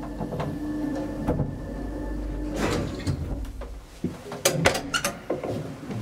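Old TITAN elevator hum, steady, stopping a little under four seconds in, followed by a quick run of sharp clicks and clunks from the door mechanism.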